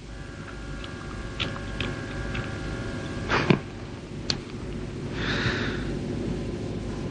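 Window air-conditioning unit being handled: several light clicks and a louder knock, a short rush of air about five seconds in, then the unit running with a low steady rumble that grows louder.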